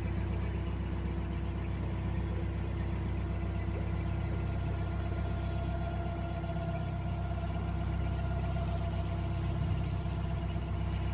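Narrowboat's diesel engine running steadily at slow cruising speed, a low even throb.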